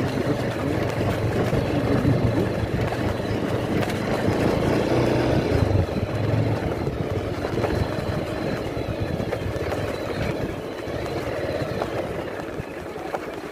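Motor scooter being ridden along a rough stone-paved track: its engine runs steadily under a dense rumble of wind and road noise, easing off a little near the end.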